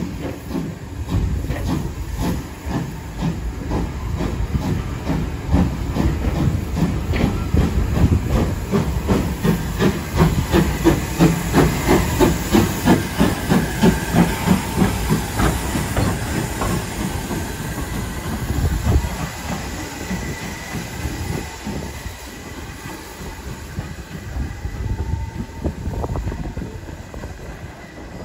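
Ivatt Class 2 2-6-2T steam tank locomotive moving slowly with a rake of coaches while shunting. Wheels click over rail joints as the coaches pass, then the engine goes by close with steam hissing and an even chuff of about two to three exhaust beats a second, loudest about halfway through. After that the sound fades to a softer hiss and rumble.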